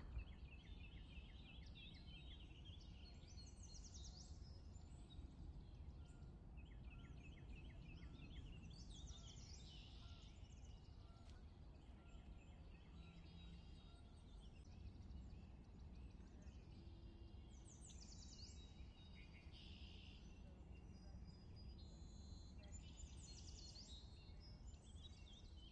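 Faint birdsong: short chirping and trilling phrases repeated every few seconds over a low, steady outdoor rumble.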